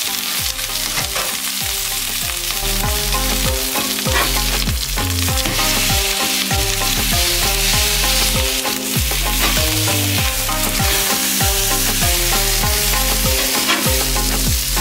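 Steaks sizzling and spitting as they sear on a hot flat-top griddle, one of them cooked from frozen. Background music with a moving bass line plays under the sizzle.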